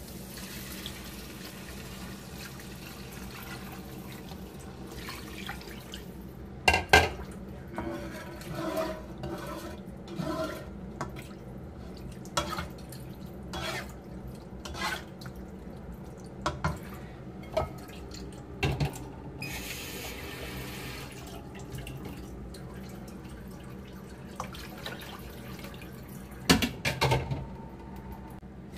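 Water being added to a cooking pot over a low steady hiss, with scattered clinks and knocks of pans and utensils, the loudest about a quarter of the way in and near the end.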